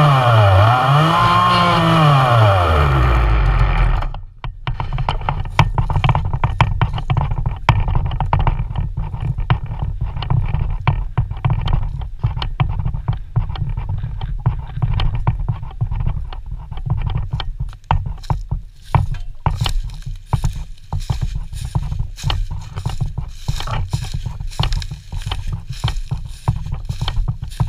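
Two-stroke chainsaw engine revving down, its pitch falling until it dies away about four seconds in. Then irregular crunching and scraping of footsteps through dry leaf litter, with knocks of the saw being carried, growing denser in the second half.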